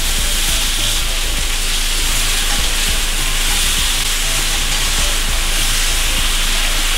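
Cornstarch-coated flank steak strips sizzling steadily as they sear in hot oil in a stainless steel skillet over high heat.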